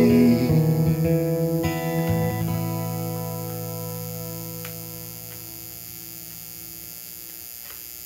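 Acoustic guitar ending a song: a few last notes change in the first couple of seconds, then a final chord is left to ring and fades away.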